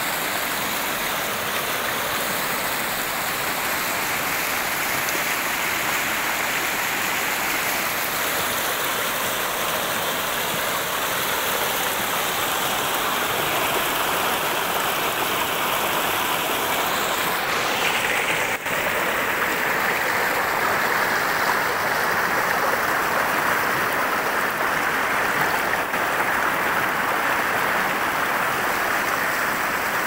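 River water flowing, a steady rush with a brief dip about two-thirds of the way through.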